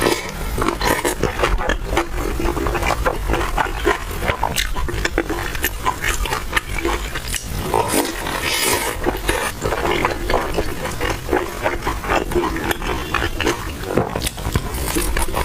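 Close-miked chewing of crispy fried oil-skin buns: a steady, irregular run of crunching clicks and mouth sounds.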